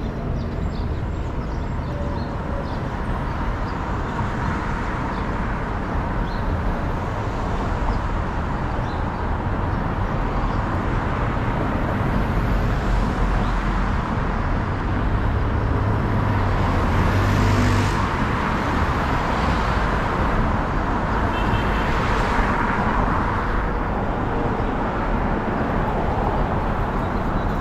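Street traffic on a wide city avenue: cars driving past one after another, the tyre and engine noise swelling as each one goes by, loudest about two-thirds of the way through.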